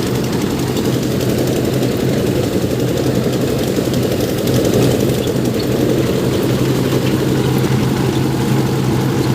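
Engine-driven paddy thresher running steadily, a dense low drone with a constant hum.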